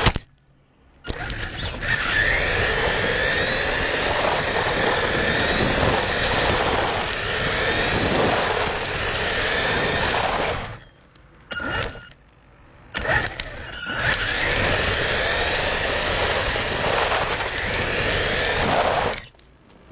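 Radio-controlled car's motor whining, rising and falling in pitch with the throttle, over a loud rattle of its wheels on paving stones, picked up by a camera mounted on the car. It runs in two long stretches, stopping briefly near the start and for about two seconds in the middle.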